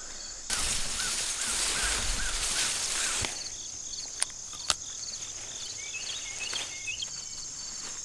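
Leafy plants rustling under a hand for the first three seconds, then two sharp snaps as stems are picked, all over a steady background of crickets chirping.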